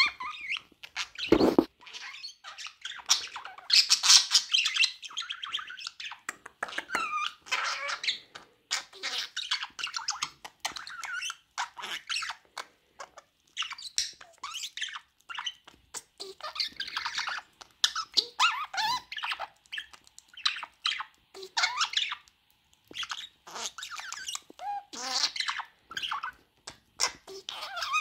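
Budgerigar chattering and warbling: a long run of quick high chirps, clicks and squeaks with short pauses between phrases.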